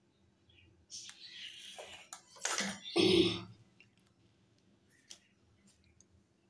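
Kitchen handling noises: a brief rustling scrape about a second in, then two short knocks around the middle as a wooden rolling pin and pizza-cutter wheel are lifted off the dough and set down on the counter. A faint steady hum runs underneath.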